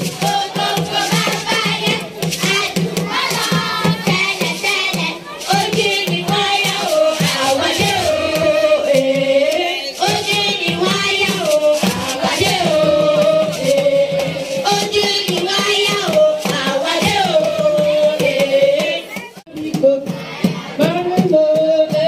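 A group of children singing a song together, with hand clapping.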